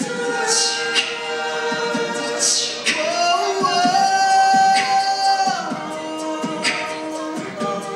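Mixed-voice a cappella group singing held chords without clear words, over beatboxed percussion: sharp vocal clicks and hissy cymbal-like crashes every second or two. All of the sound, rhythm included, is made with voices, with no instruments.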